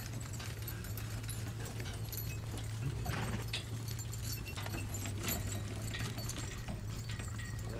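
Horse hooves clip-clopping at irregular intervals, with harness jingling, over a steady low hum.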